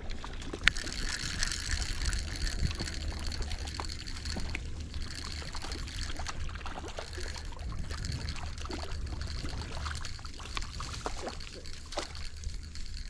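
Water trickling and lapping, with a low wind rumble on the microphone and scattered small clicks.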